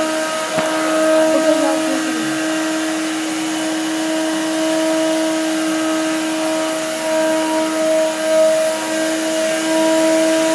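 Vacuum cleaner running steadily at full speed with an even motor hum, sucking up spilled broken glass and salt. There is a brief click about half a second in.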